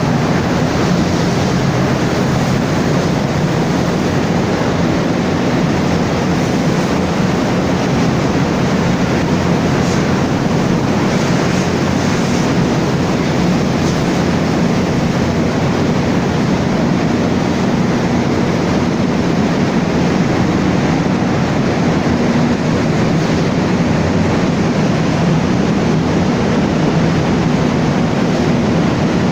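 Large diesel generator engine running at steady speed: a loud, even mechanical drone that does not change.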